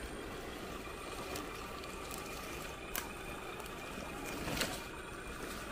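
A 6x6 RC crawler's electric motor and drivetrain whirring steadily as it crawls up a dirt bank, with two short sharp clicks, one about three seconds in and a louder one about four and a half seconds in.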